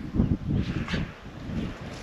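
Strong wind buffeting the microphone in uneven gusts, with a brief higher rustle just before a second in.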